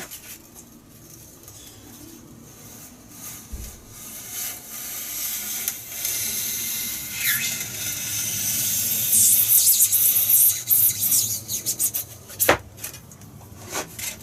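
Foam being scraped and rubbed as a spar slot in a foam wing is worked deeper. The scraping builds up and grows loud, then breaks into short strokes, with two sharp knocks near the end.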